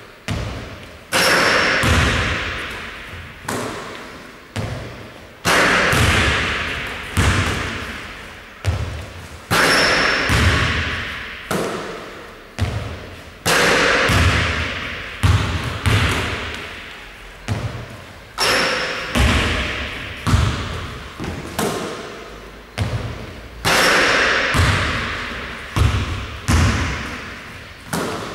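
A basketball repeatedly bouncing on a wooden gym floor and hitting the hoop during three-point shooting practice. The impacts come every second or two in a repeating cycle, each followed by a long echo in the large hall.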